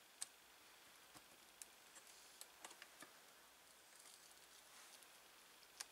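Near silence broken by a few faint, sharp clicks and taps, scattered irregularly: hands handling the metal frame of a bare LCD panel during reassembly.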